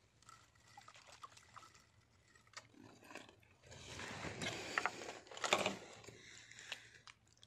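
Water splashing and trickling, building up about four seconds in and loudest a little after five seconds, with a few short clicks of handling.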